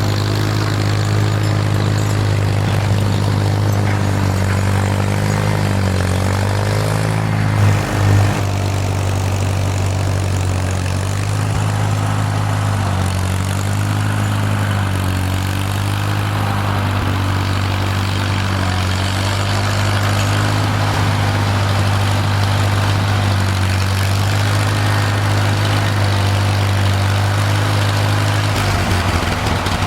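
An engine running steadily under load throughout, its pitch wavering slightly, with two brief louder knocks just before 8 seconds in.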